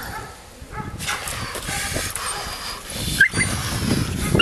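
A Belgian Malinois puppy whining, with a couple of short high yelps near the end, over a steady rustling and scuffling noise.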